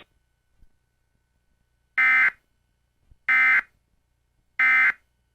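Three short, loud bursts of buzzing digital data tones, about 1.3 seconds apart: the Emergency Alert System end-of-message (EOM) code that closes the warning broadcast.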